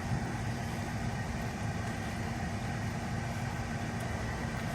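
Steady engine and road noise of a car heard from inside the cabin while driving, a continuous low rumble.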